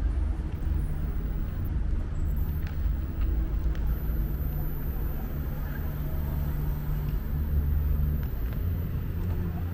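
Street traffic: a vehicle engine's steady low hum over road rumble.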